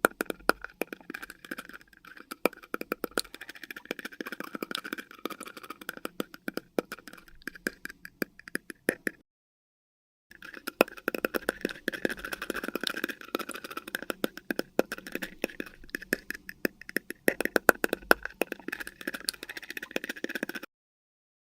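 Teeth chattering from cold: a fast, uneven stream of small clicks, in two long runs broken by a pause of about a second near the middle.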